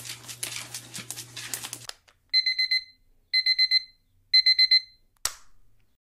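A dog's claws scratching at a hardwood floor for about two seconds, the digging of a pregnant dog nesting before whelping. Then an electronic alarm beeps in three short bursts of quick beeps about a second apart, followed by a brief click.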